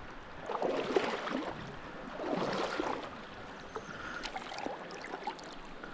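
Water splashing and sloshing beside a kayak, in two louder surges about a second and two and a half seconds in, with a few small knocks.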